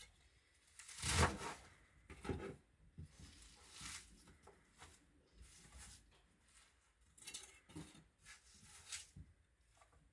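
Kitchen knife chopping leafy greens on a wooden cutting board: irregular short strikes of the blade on the board, with the loudest knock about a second in.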